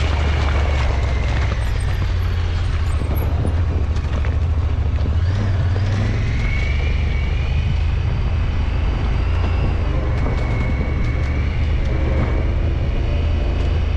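Side-by-side UTV running as it drives along a snowy dirt track: a steady low engine rumble, with a thin high whine that rises in pitch about six seconds in and drops back a few seconds later.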